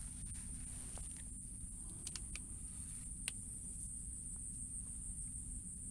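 A steady high-pitched insect trill over a low rumble, with a few faint clicks scattered through.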